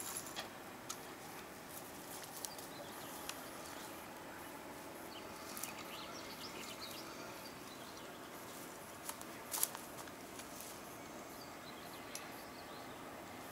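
Quiet outdoor ambience: a steady low background hiss with occasional faint bird chirps and a few sharp clicks, the loudest a quick double click about nine and a half seconds in.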